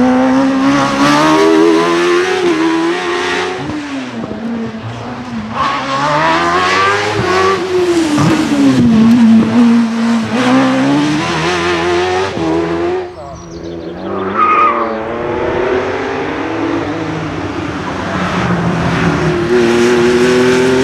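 Racing car engine at full throttle, its pitch repeatedly rising and falling as it revs up and shifts through the gears. It drops away sharply about thirteen seconds in, then comes back and climbs again near the end.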